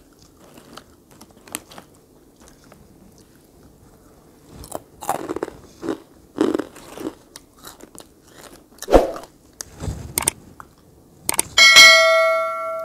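Close-miked eating: bites and chewing with scattered clicks and handling noises. Near the end, one sharp metallic strike that rings on for about a second and a half.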